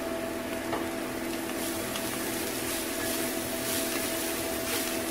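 Wooden spatula stirring grated raw plantain in a kadai, with soft scraping and faint frying sizzle, over a steady mechanical hum.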